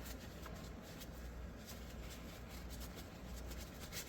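Faint, irregular rubbing and rustling of a cloth wiping down the steel parts of an SKS rifle, over a low steady hum.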